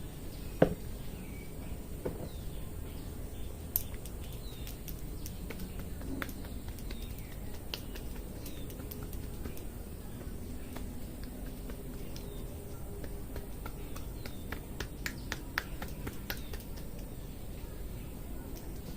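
Hair cracking during a head massage: sharp snapping cracks as tufts of hair are pulled between the masseur's fingers, scattered and irregular. One loud crack comes about half a second in, and a quick run of them near the end.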